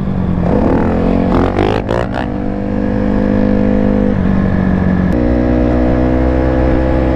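Motorcycle engine running steadily as the bike rides along, its note stepping to a new pitch about four seconds in and again about a second later.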